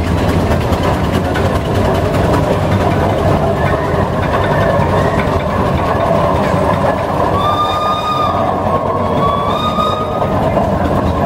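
Steam roller passing close by, its engine running with a steady, loud mechanical noise. Near the end come two short, high whistle notes.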